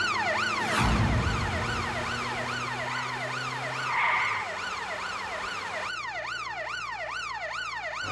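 Police siren wailing in quick rising and falling sweeps, about two to three a second, from a chasing police jeep. There is a short rush of noise about a second in.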